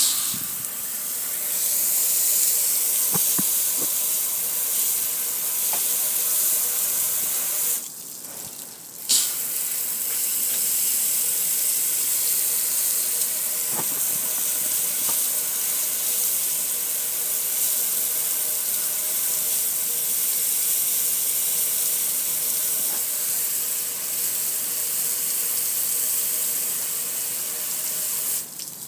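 Water from a garden hose spray nozzle spattering steadily onto a metal gas grill. The spray stops for about a second and a half about eight seconds in, then resumes.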